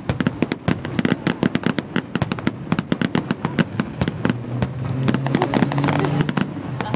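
Fireworks going off in a rapid crackling string of sharp bangs, many a second, with a low steady hum underneath for a couple of seconds past the middle.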